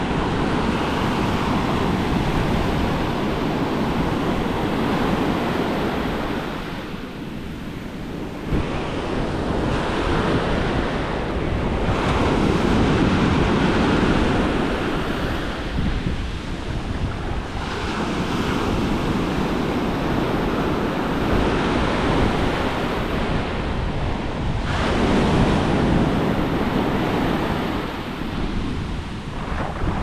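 Atlantic surf breaking and washing up over the sand at the waterline, swelling and easing every few seconds as successive waves run in.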